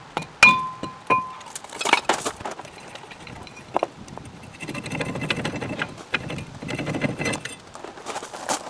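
Metal struck sharply twice, ringing with a clear tone, then clanks and the clinking and shuffling of metal tools and parts during work on a car's front wheel hub.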